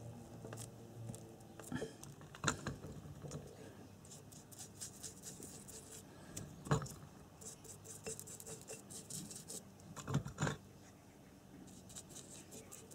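Small brush dabbing and scraping glue onto the steel claw-pole piece of a motorcycle alternator rotor in quick scratchy strokes, with several sharp clicks and knocks of the metal parts being handled, the loudest about two and a half, six and a half and ten seconds in.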